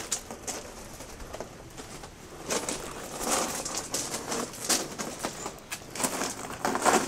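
Pigeons cooing, amid irregular swells of rustling noise.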